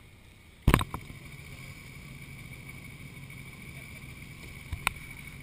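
Motorcycle engines running at low revs in a steady low hum, with a few sharp knocks near the start and again near the end.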